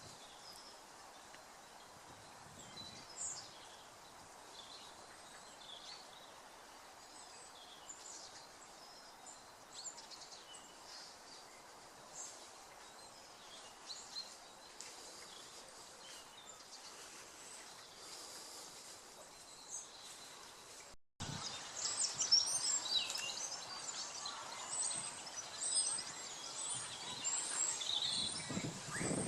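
Small birds chirping and calling in woodland over a faint steady background hiss. After a sudden cut about two-thirds of the way through, the calls become louder and much busier.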